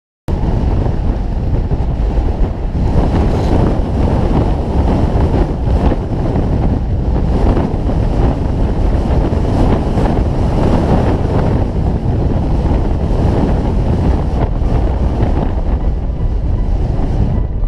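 Heavy wind buffeting on a hood-mounted GoPro's microphone as a 4x4 drives a gravel trail, with the rumble of engine and tyres buried beneath it. It cuts in suddenly just after the start and then holds steady and loud.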